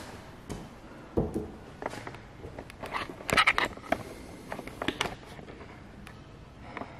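Handling noise of a handheld camera being moved and turned around: scattered rustles and knocks, with a low thump about a second in and a louder rustle around three and a half seconds in.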